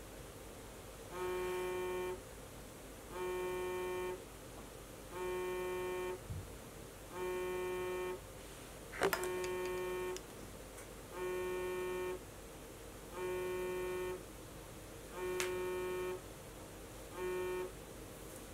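iPhone vibrating on a wooden tabletop with an incoming call, buzzing in nine bursts of about a second each, one every two seconds, the last one cut short. A sharp click comes about nine seconds in.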